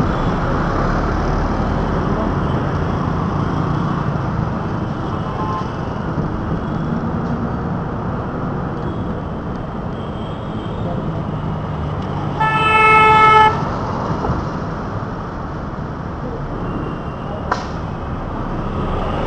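Steady city traffic and road noise heard from a moving vehicle, with a vehicle horn sounding once for about a second past the middle, the loudest sound.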